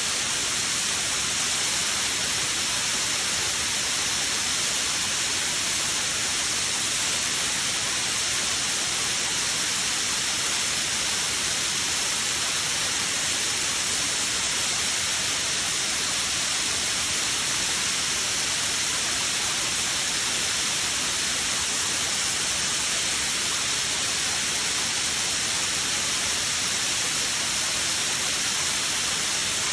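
AH-06 Hybrid HVAF thermal spray torch running steadily while spraying carbide coating, a loud, even hiss with a faint thin steady whistle through it.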